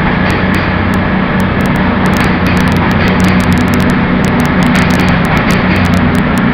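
CrossCountry Voyager diesel-electric multiple unit (a Class 221 coupled to a Class 220) departing past the platform: the underfloor diesel engines run with a steady low hum over the noise of the wheels on the rails.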